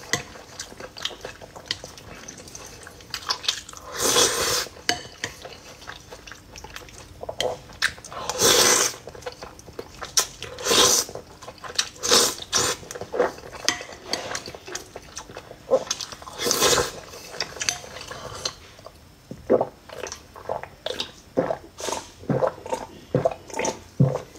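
Close-up eating sounds: wet chewing and lip-smacking of a mouthful of meat and rice, with a metal spoon clinking and scraping on the plate. Several louder bursts stand out, and the smacks come quicker, about two or three a second, near the end.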